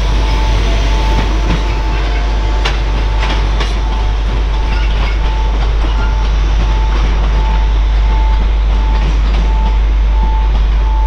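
Freight train running through the station, a loud steady rumble with wheels clicking over rail joints. A warning tone beeps on and off at an even rate throughout.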